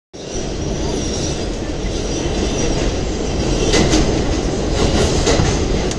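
New York City subway R211A train heard from aboard while running: a steady rumble of wheels on rail, with a few short clicks and clatters past the middle.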